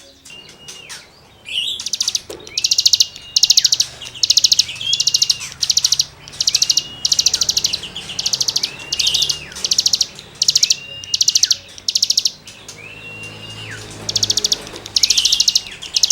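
A cigun songbird singing its scratchy 'gesekan' phrases over and over. Each phrase is a short whistle that holds and then drops, with a fast, buzzy rattle of high notes; the phrases come about every second and a half, starting about a second and a half in.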